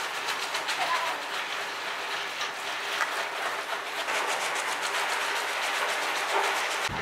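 Machine running with a fast, even clatter of several clicks a second over a steady hiss, changing abruptly near the end.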